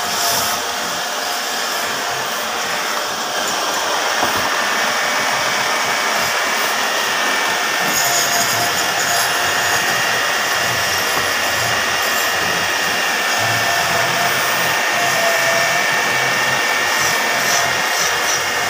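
Wood lathe running steadily with a turned wooden cot leg spinning on it, giving a steady mechanical noise with a faint high whine, while a yellow lacquer stick rubs against the spinning wood.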